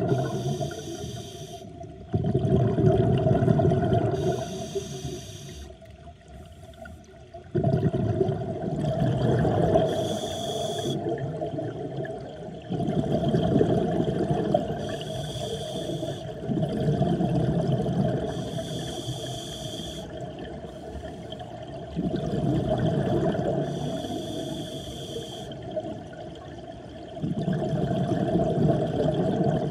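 Scuba breathing heard underwater through a regulator: a rush of exhaled bubbles starts suddenly and fades roughly every five seconds, with the hiss of each inhalation in between.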